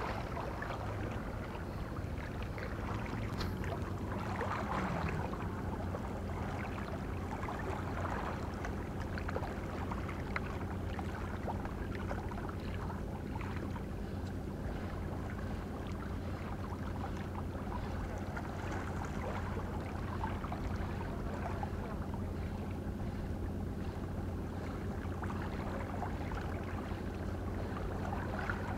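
Steady low hum of a boat engine over a faint, even rushing background.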